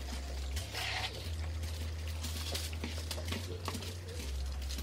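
Quiet eating sounds: chewing, and fingers picking food from aluminium foil trays, with a brief soft rustle of foil about a second in and scattered small clicks over a steady low hum.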